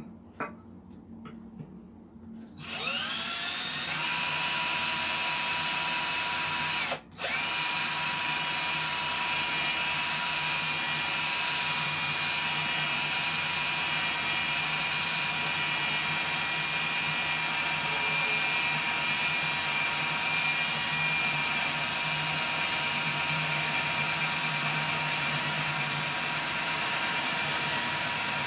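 Swiss Military cordless hammer drill spinning up with a rising whine and then boring steadily into thick steel, stopping for a moment after a few seconds before running on. A few knocks come before the drill starts.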